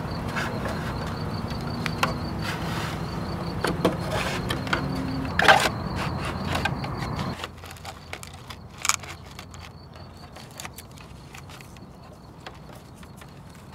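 Light clicks and knocks of plastic parts as a 3D-printed RC plane wing is slid onto its carbon rods and a lead is plugged in inside the fuselage. Underneath is a steady low hum that cuts off about seven seconds in.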